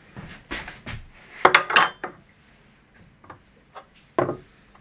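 Sharp knocks and metal scraping as the loosened aluminium plates and gantry of a homemade CNC machine are knocked and shifted. The loudest is a ringing clatter about a second and a half in, with another knock near the end.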